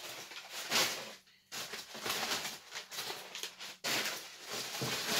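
Crumpled brown kraft packing paper rustling and crinkling as it is handled, in uneven surges with a short pause about a second in.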